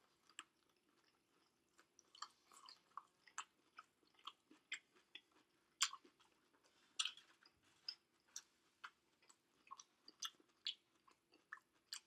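Close-miked mouth sounds of a person chewing fried rice: soft, wet smacks and clicks, roughly two a second.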